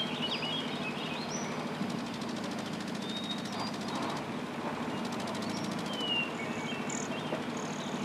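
Outdoor ambience: a steady background hum with scattered short, high bird chirps, and a faint fast rattle in the middle stretch.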